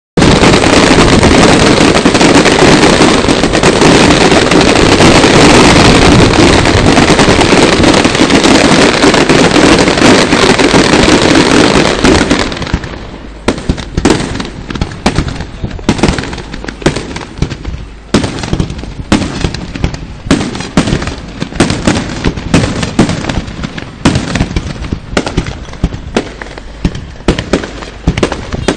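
Fireworks display: a dense, continuous barrage of bursts blurring into one loud roar for about the first half, then breaking into separate bangs and crackles, several a second, for the rest.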